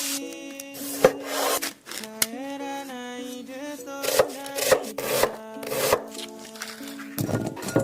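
About five short, rough scraping strokes against a surface, over background music with a held melody. A low rumble comes near the end.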